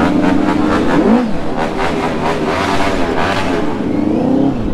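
Superbike engine revved while standing, its pitch rising and falling about a second in and again near the end.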